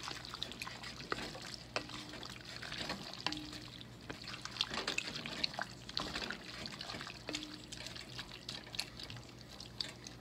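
Wooden spoon stirring thick, creamy pasta in an enamelled Dutch oven: wet, sticky squelching with scattered light clicks of the spoon against the pot, as shredded Swiss cheese and milk are mixed through to melt.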